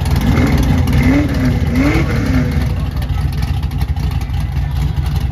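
Engine of a lowered 1960s pickup truck idling with a loud, deep rumble, given a few quick throttle blips that rise and fall about one to two and a half seconds in.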